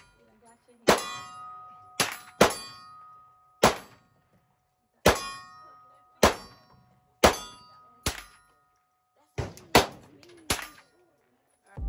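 Gunshots fired one after another at a shooting range, about eleven sharp reports roughly a second apart. Several are followed by a ringing clang that fades over about a second, the sound of a steel target being hit.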